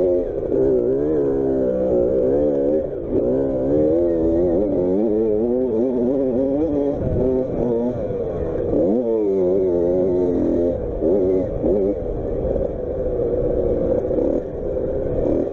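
Child's motocross bike engine being ridden hard, its pitch rising and falling again and again as the throttle is opened and shut, with brief drops where the throttle is closed about three, seven and nine seconds in.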